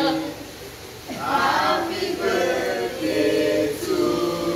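A group of people singing a birthday song together, starting about a second in after a short lull.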